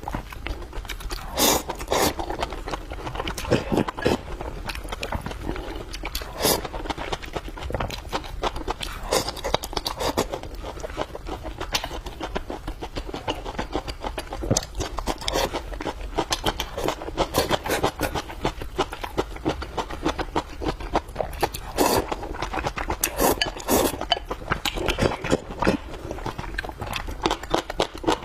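Close-miked eating sounds: a person chewing food with a rapid, steady stream of wet clicks and smacks, and a few louder bursts.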